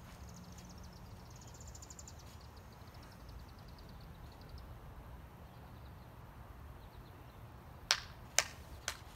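Faint outdoor ambience. A fast, high trill of ticks falls in pitch over the first few seconds, and three sharp clicks come about half a second apart near the end.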